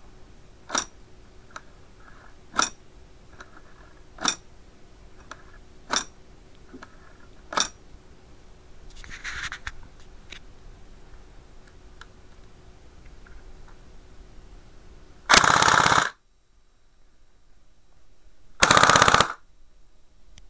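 Cyma AK-74 airsoft electric gun with a home-made blowback mod, firing five single shots about every second and a half, then two short full-auto bursts of under a second each, the bursts the loudest.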